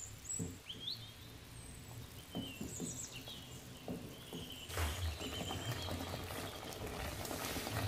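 Thick meat sauce bubbling in a steel pot and stirred with a wooden spatula, with soft knocks and scrapes that grow busier about two-thirds of the way through. Birds chirp faintly in the background.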